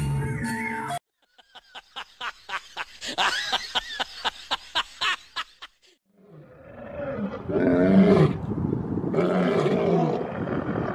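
Male lions roaring: deep, long roars wavering in pitch from about six seconds in, the loudest part. Before them comes a quick string of short sharp sounds, about four a second.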